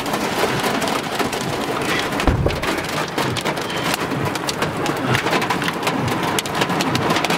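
Pea-sized hail and heavy rain pelting a truck's cab roof and windows, heard from inside the cab as a dense, steady patter of countless small hits. A single low thump comes a little over two seconds in.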